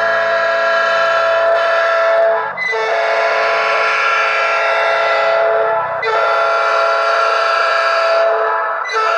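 Electronic horn module imitating a train horn through a horn loudspeaker: loud, long blasts of several steady notes sounding together like a chord, with brief breaks about two and a half seconds in, about six seconds in, and near the end.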